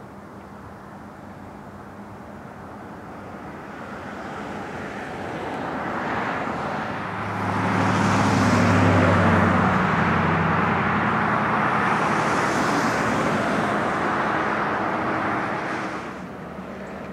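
A motor vehicle passing close by. Its engine rumble and running noise build over several seconds, are loudest about eight seconds in, hold, and then drop off sharply near the end.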